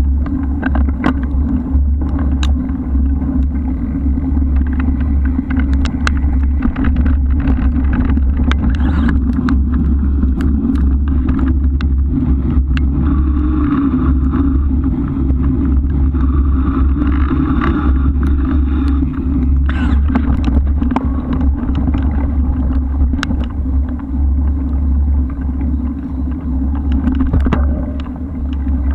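Steady rumble and wind buffeting on a camera mounted on a moving bike, with frequent sharp clicks and rattles from a rough track.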